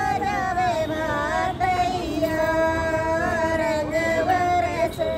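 A high female voice singing a song with long held, gliding notes.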